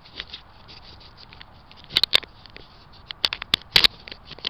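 Irregular sharp clicks and crackles close to the microphone: handling noise from a chest-mounted camera being settled in its harness and rubbing against clothing. There is a pair of louder clicks about two seconds in and a cluster of them near the end.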